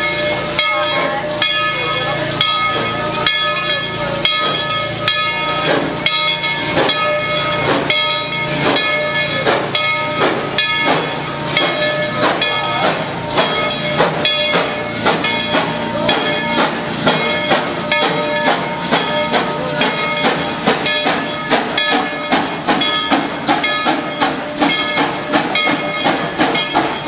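Narrow-gauge steam locomotive pulling away with its train: steam hissing under a steady high tone, and exhaust chuffs that come faster and more regularly as it gets under way.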